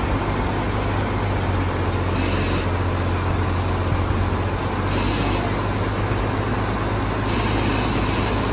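Jeepney engine idling steadily, a continuous low hum over a steady rush of river water.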